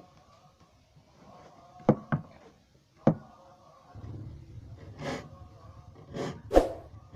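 Short, separate strokes of a file on the steel teeth of a hand saw, mixed with a few sharp knocks, and the blade ringing faintly between strokes. A low steady hum comes in about four seconds in.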